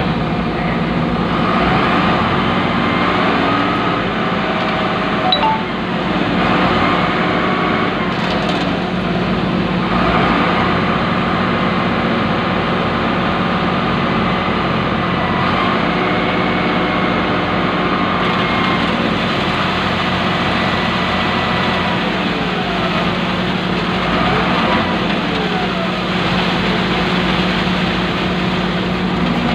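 Diesel engines running steadily: an excavator's engine heard from inside its cab, with a concrete mixer truck running alongside as it feeds concrete into the excavator's bucket.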